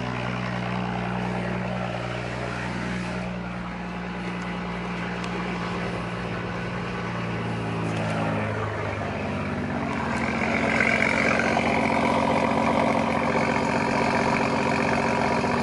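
BMW sedan engine idling steadily, heard at the exhaust. About ten seconds in, the engine tone shifts and gets a little louder.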